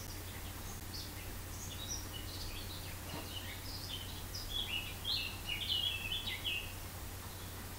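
Birds chirping: a quick run of short, high notes that grows busier and louder between about four and six and a half seconds in, over a faint steady low hum.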